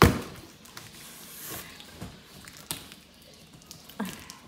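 Cardboard delivery box being handled: a sharp knock at the start, then a brief scraping rustle and a few light taps as the box is moved.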